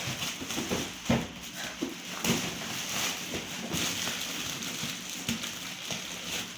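Scattered light knocks and rustling from a boxed toy and its packaging being handled.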